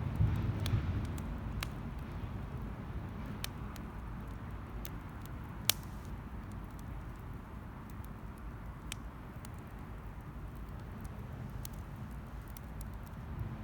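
Wood campfire burning: scattered sharp crackles and pops over a steady low rumble, with one louder pop about six seconds in.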